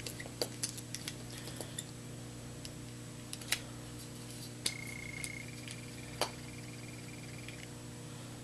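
Handling noise: scattered light clicks and taps as hands work a pad, over a steady low hum. A faint high beeping tone pulses from about five to seven and a half seconds in.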